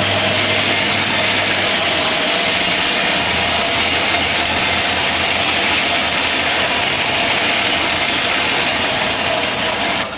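Coal forge blower running steadily, a loud even rush of air with a low hum, blowing air into the fire. It cuts off near the end.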